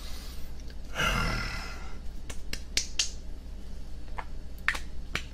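A brief breathy rush about a second in, then about seven sharp separate clicks and taps from plastic cosmetic bottles being handled close to the microphone.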